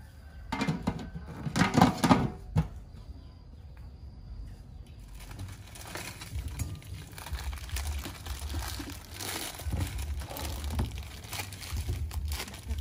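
A metal pot lid clanks and rings a few times against a large soup pot. Then comes a run of plastic crinkling and tearing as instant-noodle packets are opened and emptied.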